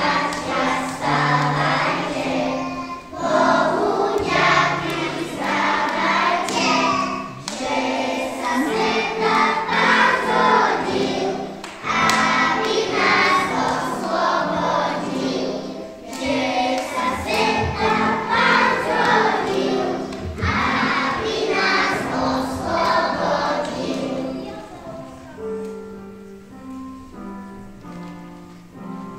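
A group of young children singing together over steady instrumental accompaniment. Near the end the voices drop away and the accompaniment carries on alone, softer.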